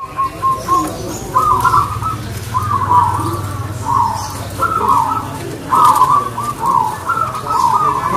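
Zebra dove (perkutut) singing: a string of short, rapid, rolling coo phrases at much the same pitch, one after another with brief gaps between them.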